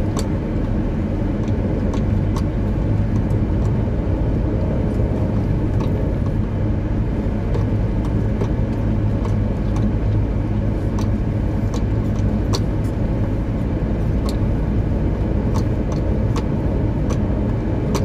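Car driving on a rough dirt road: a steady low rumble of engine and tyres, with scattered short clicks and knocks from the bumpy road surface.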